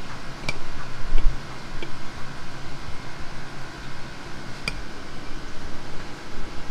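Two sharp, ringing clinks of a metal spoon against a plate, about half a second in and again about two-thirds through, with a few fainter ticks between, over a steady background hum.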